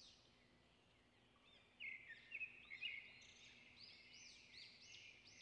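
Faint bird chirping over near silence: a run of short high chirps, loudest about two to three seconds in, then fainter ones.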